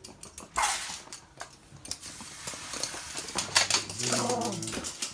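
Two toy poodles playing with stuffed toys: quick clicks and scuffling, a brief noisy rush about half a second in, and a short low growl near the end.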